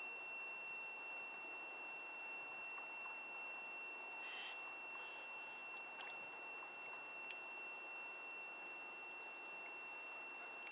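Faint outdoor pond ambience with a steady high-pitched whine throughout; a bird gives one short call about four seconds in and a fainter one about a second later.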